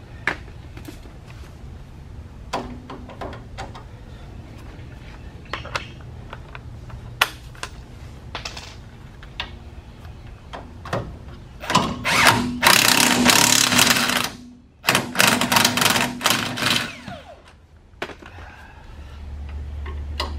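Impact wrench hammering in two bursts of a couple of seconds each, a little over halfway in, tightening the 18 mm bottom nut of a sway bar end link. Before that, scattered clicks and knocks of a socket and tools being handled.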